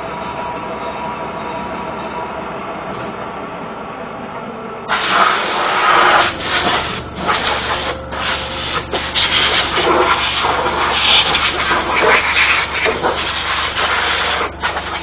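Metal lathe turning a brake disc: a steady hum with several fixed tones that slowly fades as the spindle coasts down. About five seconds in, a loud, uneven rasping noise starts and continues.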